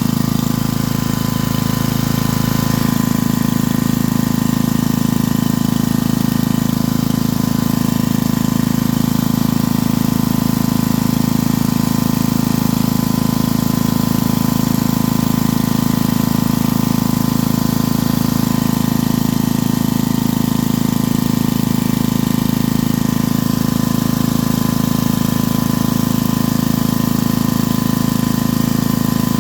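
Coleman Powermate 4000 W portable generator's 8-horsepower engine running at a steady speed, with a slight shift in its low drone about three seconds in.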